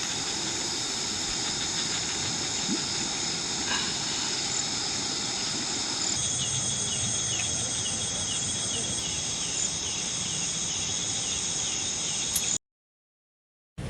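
Insects trilling steadily in several high, continuous tones over a faint even outdoor hiss; about halfway through a higher trill joins along with a faint chirp repeating roughly once or twice a second. The sound cuts off to complete silence for about a second near the end.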